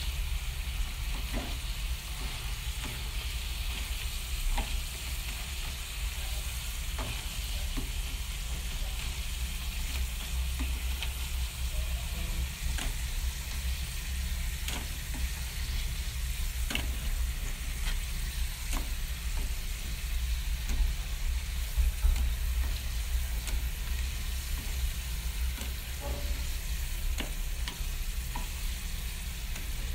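Thin potato slices sizzling as they fry in oil in an aluminium pan, with scattered clicks every second or two as wooden chopsticks turn them, over a steady low hum.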